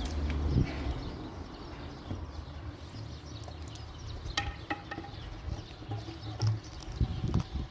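Outdoor yard ambience with a low steady rumble, brief animal calls about halfway, and a few sharp knocks near the end as a large round wooden bread board is handled and set down.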